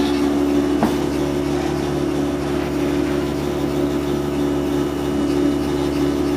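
Tally T6140 dot matrix printer printing labels: a steady buzzing drone from the print run, with a single sharp click about a second in.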